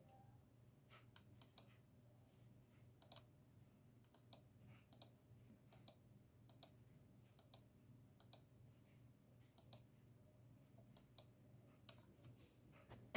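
Roco 79047 model locomotive running slowly: a faint low motor hum with a string of light clicks, roughly one or two a second at uneven spacing. The owner complains that the motor runs jerkily up to speed step 4.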